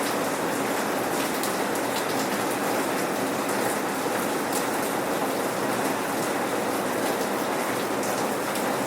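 Steady rain with no thunder, drops pattering on surfaces in an even, constant hiss with fine drop ticks.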